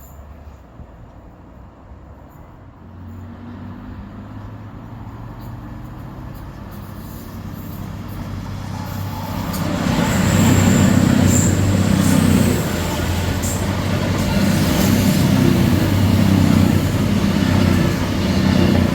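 Train coming into the station: a low drone that grows over about ten seconds, then stays loud with a pulsing rumble.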